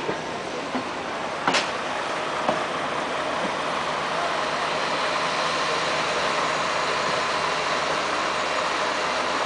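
Steady hiss and hum of trains at a station platform, with one sharp click about a second and a half in.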